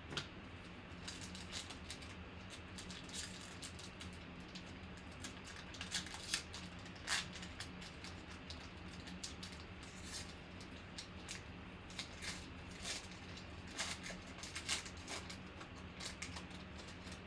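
Foil wrapper of a trading-card pack being handled and torn open: irregular crinkling with scattered sharp crackles, over a faint steady hum.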